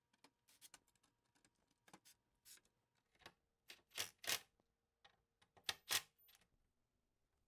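Scattered light clicks and taps of hardware being handled against a wooden cabinet door: a metal bar pull and an impact driver's bit knocking and rattling as the pull is lined up, with louder clusters of taps about four and six seconds in.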